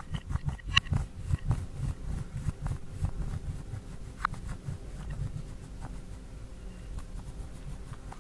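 Slime being mixed and kneaded by hand: a rapid run of soft, low squishing pulses with a few faint clicks.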